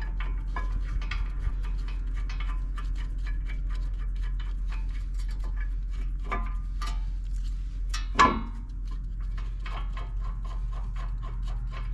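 Ratchet wrench clicking in a fast, even series as the brake caliper bolts are run in, with a single louder metallic clank about eight seconds in.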